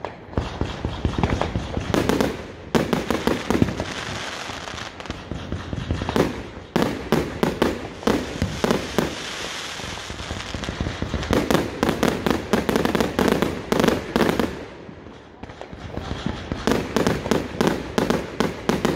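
Fireworks going off: volleys of rapid, sharp bangs and crackles from shells bursting overhead, with short lulls of hiss between the volleys.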